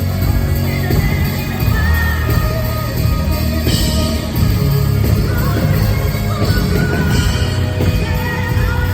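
Loud live country-pop band music played through an arena sound system, with some singing over it.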